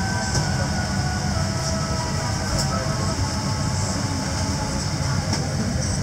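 Steady cabin noise inside a Boeing 787-8 Dreamliner: a constant low rumble with a hiss above it, and no breaks.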